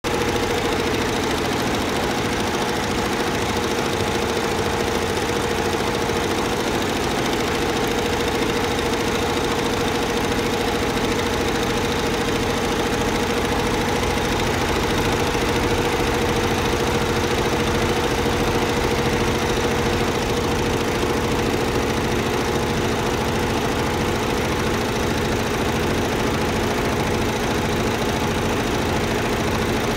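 AJITCL multi-head loop (towel) embroidery machine running, its needle heads stitching in a fast, even rhythm under a constant mechanical hum.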